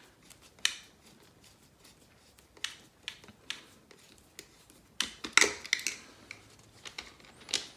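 Scattered light clicks and knocks of hard plastic RC car chassis parts and a screwdriver being handled while a screw is driven, with a short cluster of clicks about five seconds in.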